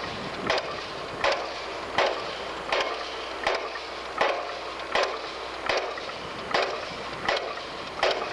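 Pile driver hammering: evenly spaced heavy blows, about four every three seconds, over the steady background noise of the site.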